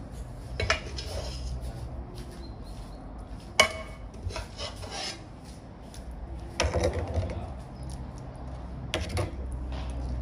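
Kitchen handling sounds: rubbing and scraping of utensils and pots, broken by four sharp knocks, the loudest about three and a half seconds in.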